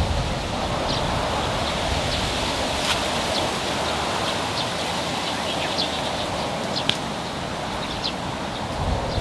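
Steady rustling of leaves and branches, with short high bird chirps every second or so.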